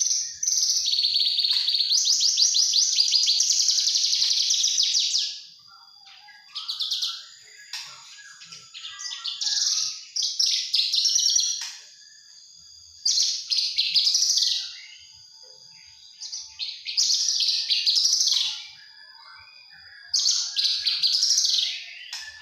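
A young Javan bush lark (branjangan) singing: a long, rapid buzzy trill in the first five seconds, then several shorter chattering phrases with pauses between them. A faint steady high tone sits behind the song.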